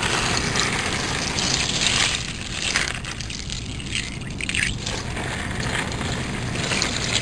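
Plastic bag crinkling and wet small horse mackerel sliding and slapping together as a hand stirs and scoops them up, with some water sloshing, in irregular rustling bursts over a low wind rumble.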